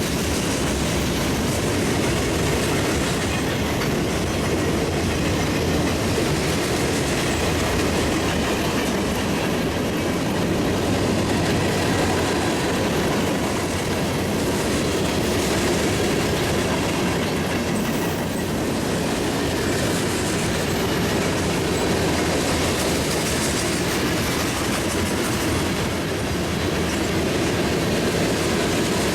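A freight train's cars rolling past with a steady rumble and the clatter of wheels over rail joints.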